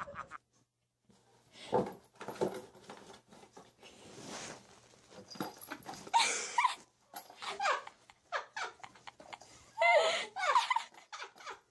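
A cat meowing several short times amid scuffling and rustling, its head stuck in a tissue box.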